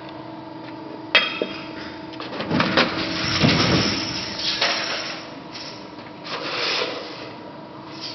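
Amada Promecam GH hydraulic guillotine shear making a cut in sheet steel over the steady hum of the machine running: a sharp clank about a second in, then a few seconds of loud clattering and rattling metal as the blade cuts and the strip drops, with a smaller rattle of the sheet a little later.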